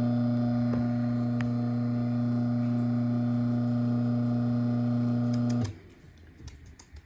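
Craftsman ½ hp chain-drive garage door opener running the door down, a loud steady motor hum that cuts off suddenly about five and a half seconds in as the opener stops at the end of its travel.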